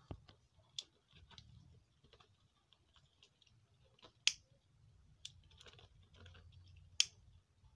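Scattered sharp clicks and small crackles from a plastic mat being handled and worked, with three louder clicks a few seconds apart.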